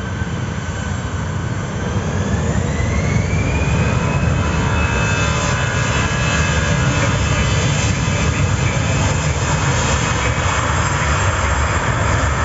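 Jet engines of a Citilink Airbus A320-family airliner spooling up to takeoff thrust: a whine that rises in pitch over the first few seconds and then holds steady, over a loud low rumble that grows as the aircraft starts its takeoff roll.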